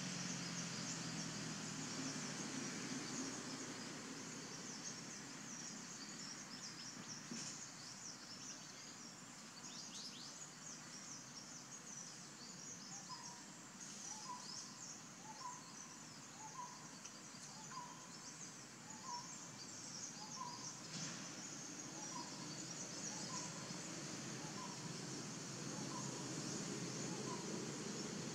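Forest ambience: a dense, steady chatter of high-pitched chirps from birds or insects. About halfway through, a bird begins repeating a short note roughly once a second, and this keeps going until near the end.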